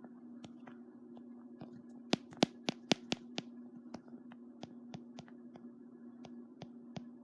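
Computer keyboard keys clicking: a quick run of keystrokes about two seconds in, then single key presses every third of a second or so, over a steady low hum.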